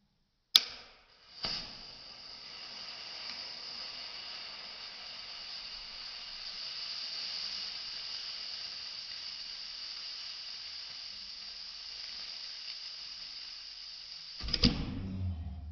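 A sharp crack, then a steady loud hiss of something spraying or burning for about thirteen seconds, breaking off into low rumbling and knocks near the end.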